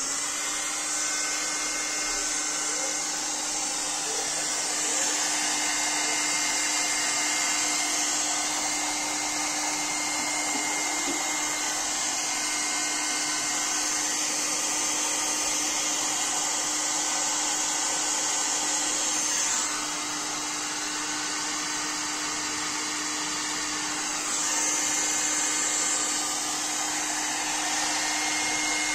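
Electric heat gun running steadily, its blower making a rush of air with a steady hum, as it blows hot air onto a plastic chair joint to soften the plastic for a repair. The sound drops a little about twenty seconds in and comes back up some four seconds later.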